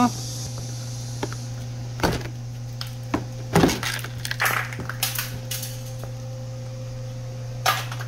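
Plastic push-pin clips being pried out from under a Kia Mohave's front bumper: a scatter of short, sharp plastic clicks and snaps over a steady low hum.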